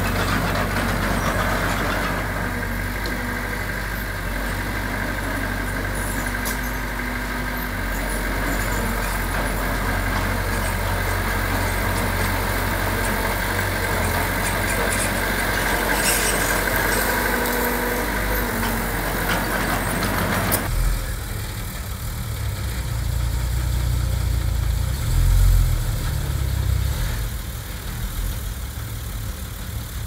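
Heavy diesel engines of earthmoving machinery (dump trucks and a bulldozer) running steadily. About two-thirds through the sound changes abruptly to a deeper, uneven engine rumble that swells briefly a few seconds later.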